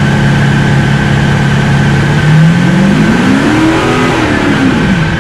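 Audi SQ5's 3.0-litre twin-turbo V6 diesel running on a chassis dyno, holding a steady note, then rising in pitch about two seconds in, peaking near four seconds and falling back by the end.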